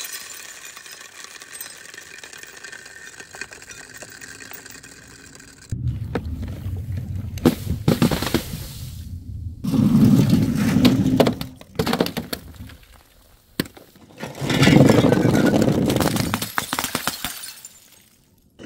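Glass marbles clicking and clattering as they bounce down concrete steps. Then come stretches of heavier rolling and knocking with sharp impacts, from aluminium drink cans tumbling down a wooden chute and objects dropped onto hard ground.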